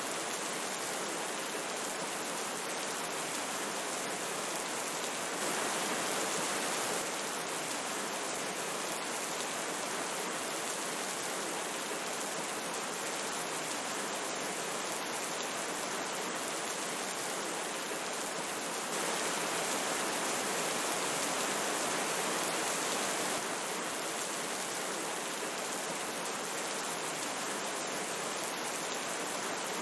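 Steady rushing of a river flowing, with rain falling, as an even wash of water noise that steps up slightly in level twice.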